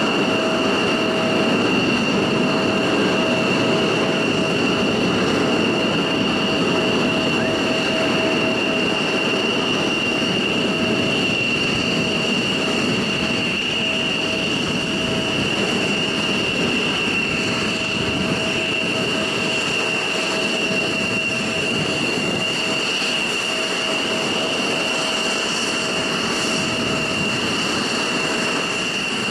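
F-16 fighter jet engine idling on the ramp: a steady high-pitched turbine whine over a rushing noise, with a lower hum that fades in and out.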